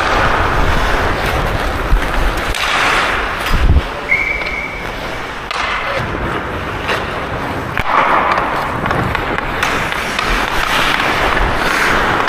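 Ice hockey skate blades carving and scraping across rink ice in repeated hissing swells, over a low rumble. There are a couple of sharp knocks about two and three and a half seconds in, and a brief steady high tone about four seconds in.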